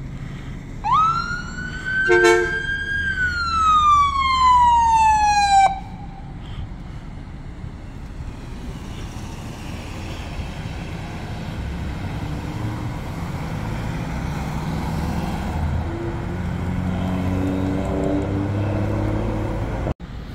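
Fire department ambulance's siren giving one wail: a quick rise, a held high tone, then a slow fall that cuts off about six seconds in, with a short horn blast about two seconds in. Then vehicle engines and traffic run steadily, with a heavier engine rumble near the end.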